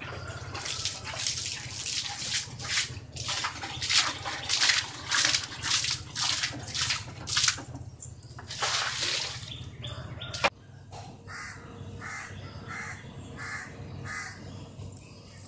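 Water flung by hand from a bucket onto wet paving, splashing in quick, regular throws about twice a second; the splashing stops about halfway through and it goes quieter.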